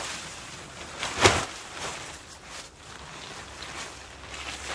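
Waterproof poncho fabric rustling and flapping as it is shaken out and spread on the ground as a ground cloth, with one loud swoosh about a second in and softer rustles after.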